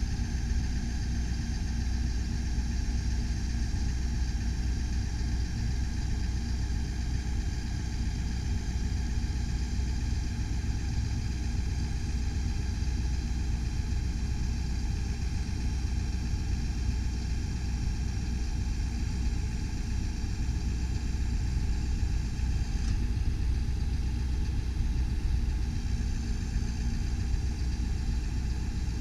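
2017 Ford F550 bucket truck's engine running steadily at idle while the aerial boom's hydraulics raise and extend the boom. A steady high whine rides over the engine, dropping away a little past two-thirds of the way through and returning near the end.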